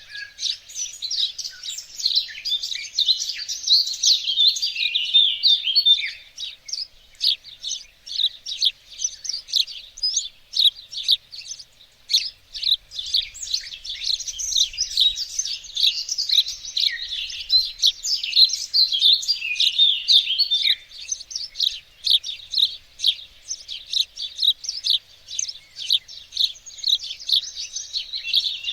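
Songbirds singing and chirping without a break, several voices overlapping in quick, high trills and short notes.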